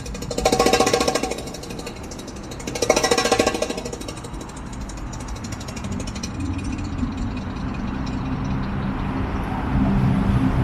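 A motor vehicle's engine: two short loud buzzy bursts, then a low rumble that builds steadily toward the end.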